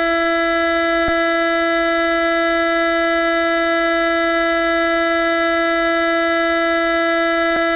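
A loud, steady, buzzy electronic alert tone held on one pitch without change: a synthesized emergency-alert tone. Two faint clicks come through, about a second in and near the end.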